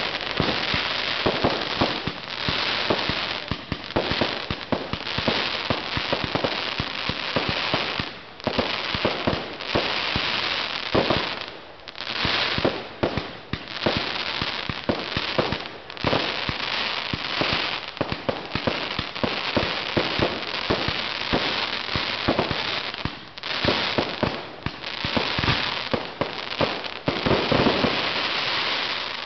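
A zipper ('Z') fireworks cake firing shot after shot in a rapid, nearly unbroken string, with hissing and crackling between the reports and a few brief lulls.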